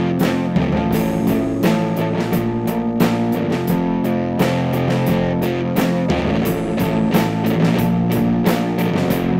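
Amateur rock band's song in an instrumental passage: guitar chords over a bass line, with drums keeping a steady beat.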